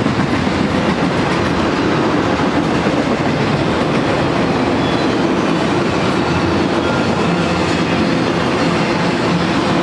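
Freight train of auto-rack cars rolling past: a steady, even noise of steel wheels running on the rails.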